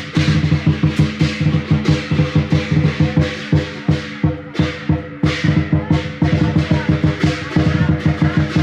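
Music with a fast, steady drumbeat over held low notes.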